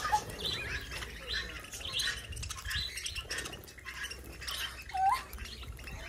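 A flock of small parrots, budgerigars among them, chirping and twittering in quick short calls. About five seconds in there is one louder, short rising whistle.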